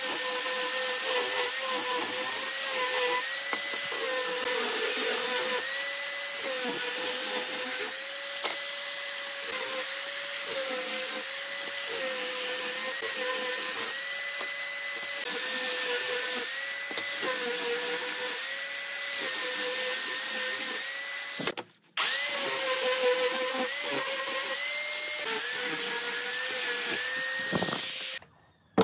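Angle grinder with a sanding disc running and sanding a wooden board: a steady motor whine whose pitch dips and recovers again and again as the disc is worked over the wood. It stops briefly about two-thirds of the way through, runs again, then cuts off just before the end.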